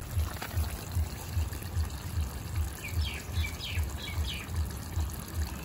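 A low, even thudding that repeats about five times every two seconds, with a bird giving four quick falling chirps a little past the middle.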